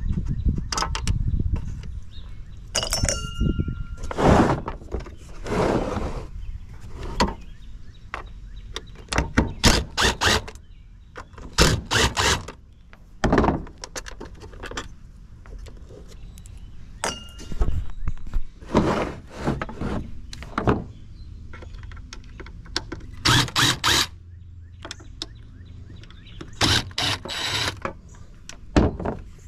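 Irregular metal knocks, clanks and scrapes from hand-tool disassembly of a pool pump, with a brief ringing metallic tone twice.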